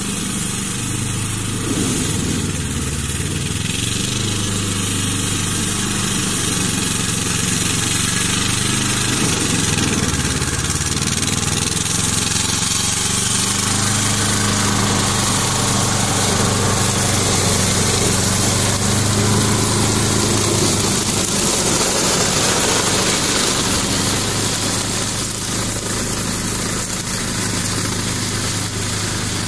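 Ferrari 95RS compact tractor's Lombardini 40 hp diesel engine running steadily under load, driving a PTO-driven Alfagri brush cutter that is chopping through reeds. It gets louder as the tractor passes close, about midway, then fades slightly near the end.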